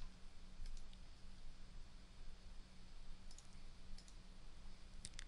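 A few faint computer mouse clicks, some in quick pairs, over a low steady hum.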